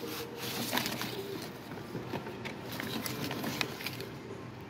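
Cardboard boxes and plastic toy packaging being handled: scattered light clicks, taps and rustling as a box is opened and its contents are moved about.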